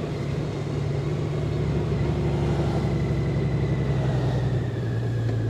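Honda Gold Wing's 1833 cc flat-six engine running steadily while riding at street speed, heard from the rider's seat over a steady rush of road and wind noise; the engine's pitch steps down slightly about four and a half seconds in.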